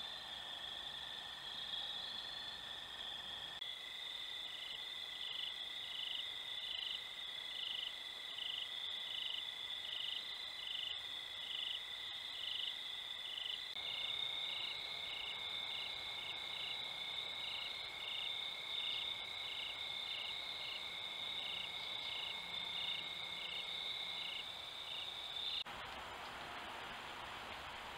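Crickets calling at night: a steady high trill with a slower chirping pulse over it, about two chirps a second. About two seconds before the end it gives way to a soft even hiss of light rain.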